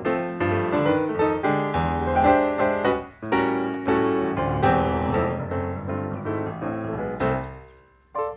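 Piano music: quick runs of struck notes, dipping briefly about three seconds in and fading out near the end.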